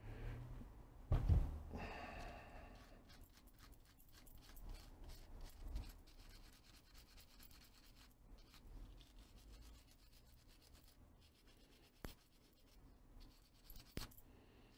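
Quiet rubbing and scraping of the old soldering gun's switch and handle parts being handled and turned over in the hands, with a dull knock about a second in and a couple of light clicks near the end.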